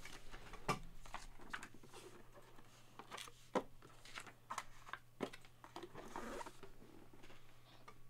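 Faint handling noise: scattered light clicks and knocks and a brief rustle around six seconds in, from cardboard boxes and a plastic graded-card slab being moved about and set down.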